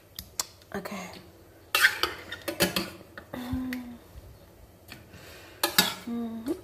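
A metal spoon clinking and scraping against a stainless steel pot while scooping through boiled vegetable chunks, with a handful of short, sharp clinks spread through.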